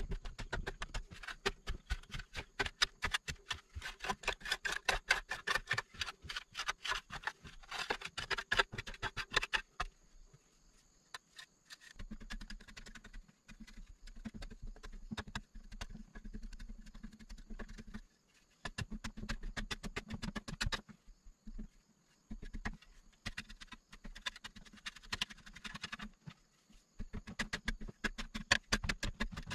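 A hoe's metal blade chopping and scraping into a packed clay earth wall in rapid strokes, loose soil crumbling and pattering down, with short pauses about ten and eighteen seconds in.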